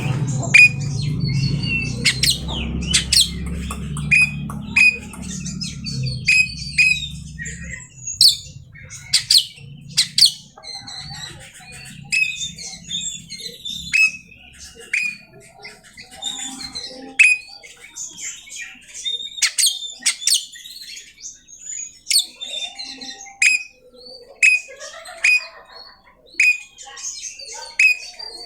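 Oriental magpie-robin (kacer) singing a long, varied run of loud sharp whistles, many of them downslurred and repeated, mixed with harsh squawky notes. A low hum sits under the first eight seconds or so, then fades out.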